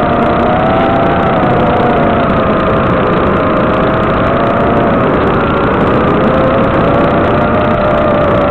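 Whine of an FPV aircraft's electric motors. It holds a steady pitch that drifts slowly up and down with the throttle, under a constant hiss.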